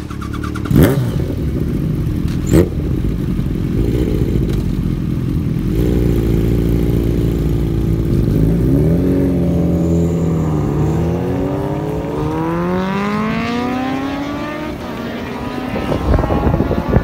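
Motorcycle engines accelerating away, the pitch climbing, dropping briefly at a gear change about eleven seconds in, then climbing again. Two sharp knocks come in the first few seconds.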